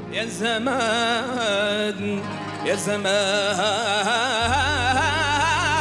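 A male singer performing an Andalusian mawwal: long, ornamented sung phrases with wide vibrato over a steady low instrumental accompaniment. A deeper low note comes in a little past four seconds.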